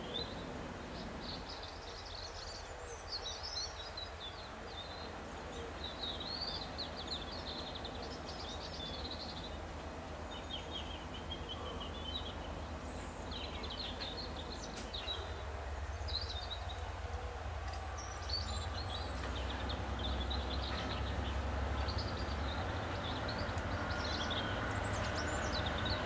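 Birds chirping and singing throughout, while the low rumble of an approaching Class 66 diesel freight locomotive grows louder over the second half.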